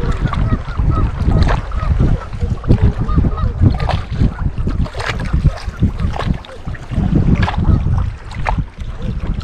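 Wind gusting over the microphone, with a rumble that rises and falls. Over it, short clicks and knocks come from water lapping and a baitcasting reel being cranked.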